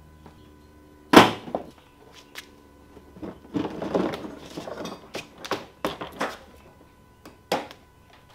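Plastic front bumper cover of a Nissan 370Z being pulled off the car: a sharp snap about a second in, then rubbing and scraping of plastic with several more clicks and knocks as it comes loose.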